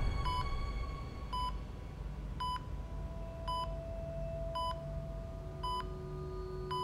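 Hospital patient monitor beeping a short, even pulse tone about once a second, over a low hum.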